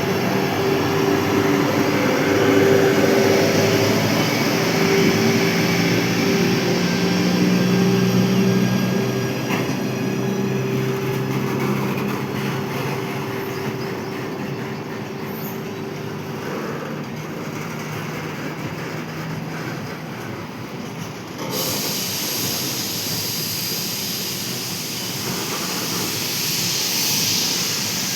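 Freight train hauled by a WAG-12B electric locomotive pulling out and rolling past: a continuous rumble of wheels on rail with some squeal. Steady tones run through roughly the first half, then fade. The sound turns abruptly brighter about three quarters of the way through.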